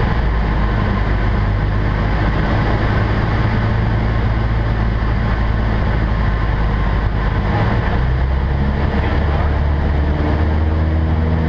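Cessna 172N's Lycoming O-320 four-cylinder engine and propeller, heard from inside the cabin with a steady rush of air. The engine runs throttled back through most of the dive recovery, then picks up as power is applied in the last few seconds.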